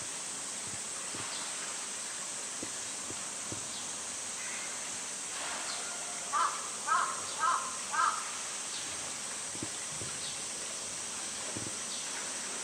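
A crow cawing four times in quick succession, about half a second apart, near the middle. A steady high-pitched hiss runs underneath.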